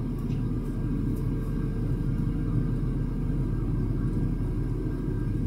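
A truck's diesel engine running steadily at low speed while the truck moves slowly, a constant low rumble with no change in pitch.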